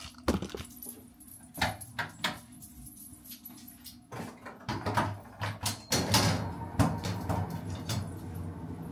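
Clinks, rattles and knocks of a metal over-the-door shelving organizer's poles and parts being handled and fitted together. A steady low hum comes on about halfway through.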